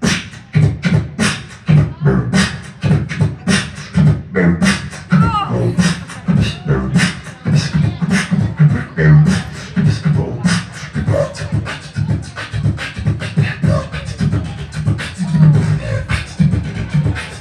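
Beatboxing through a microphone and PA speaker: a steady drum beat of kick, snare and hi-hat sounds made with the mouth, with a wavering, gliding sound effect layered over it about five seconds in and again later on.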